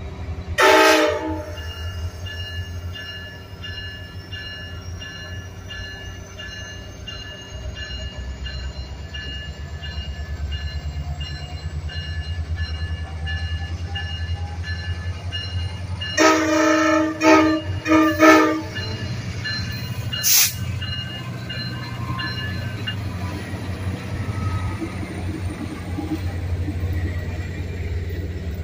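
Virginia Railway Express MP36PH-3C diesel locomotive sounding its horn: one short blast about a second in, a cluster of short blasts around the middle and one more short toot soon after. The locomotive's diesel engine runs steadily underneath as the train passes.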